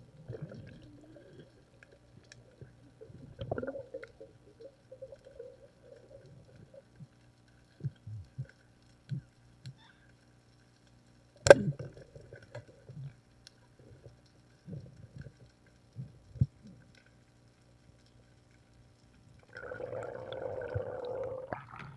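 Underwater sound of a night spearfishing dive: a faint steady low hum with scattered soft knocks and clicks from the spear and gear, and one sharp loud click about halfway through. Near the end comes a couple of seconds of rushing noise.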